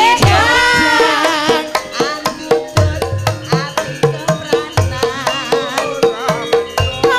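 Javanese gamelan playing: kendang hand-drum strokes keep a steady beat under struck bronze kettle gongs and metallophones. A gliding melody line sounds over it in the first second or two.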